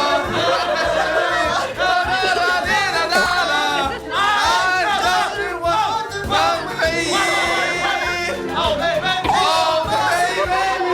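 A voice singing with a wobbling, swooping pitch over a musical backing.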